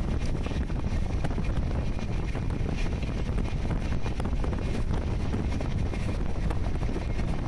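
Passenger train running: a steady low rumble from the carriage, with wind buffeting the microphone and light irregular clicks over it.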